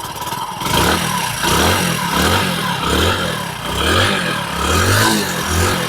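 Hero HF Deluxe motorcycle's single-cylinder four-stroke engine being revved in repeated quick throttle blips, its pitch rising and falling about every half to three-quarters of a second. The engine is freshly rebuilt with genuine parts, and runs without abnormal noise.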